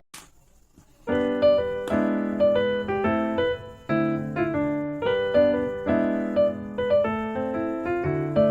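Background piano music: a gentle melody of struck notes over a repeating accompaniment, starting about a second in after a brief near-silent gap.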